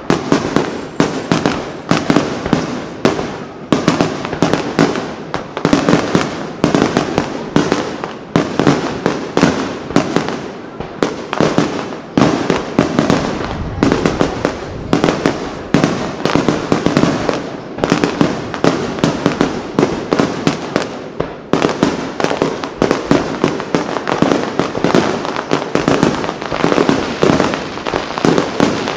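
A rapid barrage of aerial firework shells bursting overhead, loud bangs following one another several times a second without a pause.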